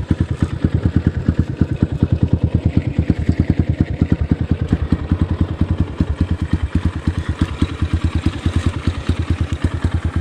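GPX FSE 250 dirt bike's engine running at low revs, with a steady, even beat of about eight pulses a second.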